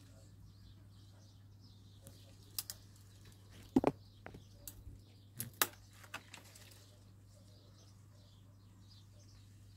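Several sharp clicks and knocks close to the microphone, the loudest about four seconds in, over a steady low hum, with faint bird chirps in the background.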